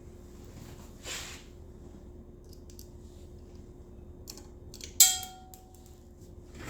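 Faint handling of small parts, then a sharp metallic clink with a short ring about five seconds in: a small screw dropping off the screwdriver and striking metal.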